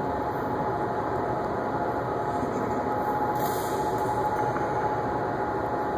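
Steady droning machinery noise with a constant hum, the pump and air-handling noise of an indoor pool room.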